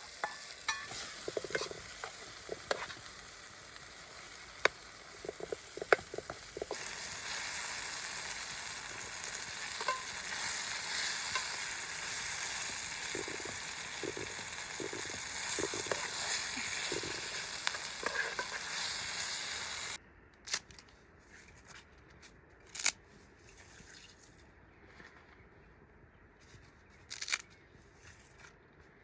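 Food sizzling and frying in a pan, with utensil clicks and scraping as it is stirred. The sizzle grows louder about a quarter of the way in and cuts off suddenly about two-thirds through, leaving only a few scattered clicks and taps.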